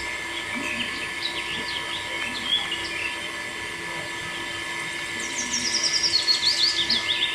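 Small birds chirping: scattered short chirps, then a fast run of quick, descending chirps from about five seconds in.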